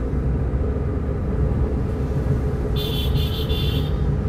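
Engine and road noise heard inside a moving car's cabin, steady throughout. From about three seconds in, a high-pitched horn toots in quick pulses for about a second.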